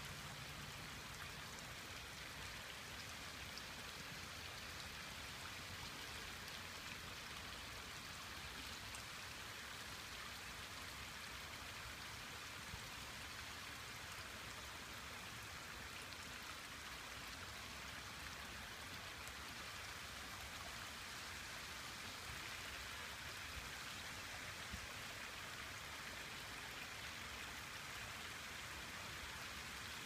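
Small waterfall pouring from a stone-wall spout into a koi pond, a steady light splashing of water.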